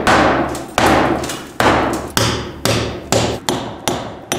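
A hammer strikes about nine times, the blows coming faster toward the end, and each one rings out briefly.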